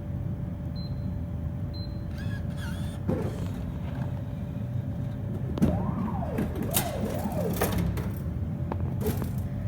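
Drink vending machine vending a selection: two short high beeps about a second apart as the number is keyed in, over a steady hum. Later comes a rising and falling whine with several sharp clicks and knocks as the mechanism works.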